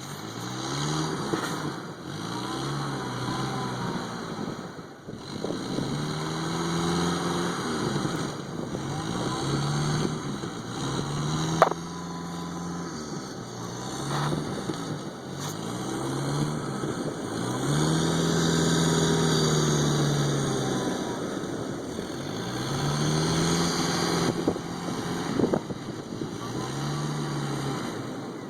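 1995 Jeep Wrangler's engine revving up and falling back over and over as it pushes through deep snow, the pitch rising and dropping every few seconds, with a sharp click about twelve seconds in.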